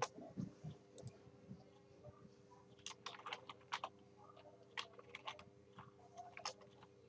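Faint computer keyboard typing, a few keystrokes at a time in irregular clusters, over a faint steady hum.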